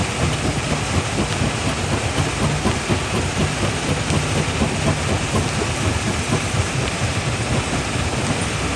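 Primary jaw crusher working rock, a steady deep rumble with a dense, unbroken clatter of stone being broken.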